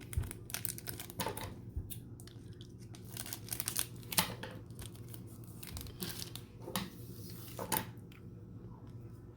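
Trading card pack wrapper being crinkled and opened, with the cards inside rustling as they are handled: a string of short crackles and scratchy rustles, busiest about three to four seconds in.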